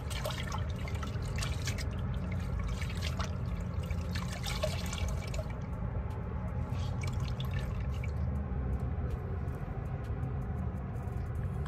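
Water splashing and dripping as a washcloth is rinsed in a small basin by hand. The splashing is busiest in the first half and thins out after about five seconds, over a steady low hum.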